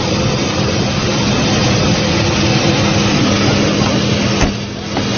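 Loud, steady aircraft engine noise with a constant hum underneath. About four and a half seconds in there is a click and a brief drop in level, like an edit cut.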